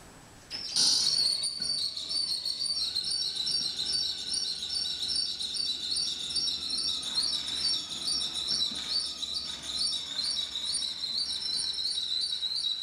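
Cordless drill running under heavy load as it turns a 3D-printed planetary-gear winch that hoists a kayak. It makes a steady high-pitched whine with a fast wavering pulse, starting about half a second in.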